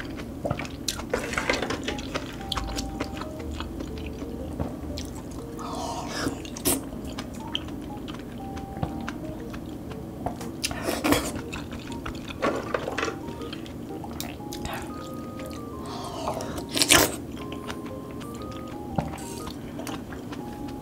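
A person eating thick loach soup: a spoon scooping from a ceramic bowl, with wet slurping and chewing, over soft background music. A few sharper sounds stand out, loudest about eleven and seventeen seconds in.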